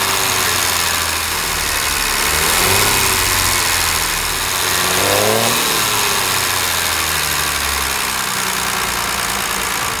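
Maserati 3500 GT's 3.5-litre Tipo 101 straight-six running, revved once about halfway through so the pitch rises and falls again.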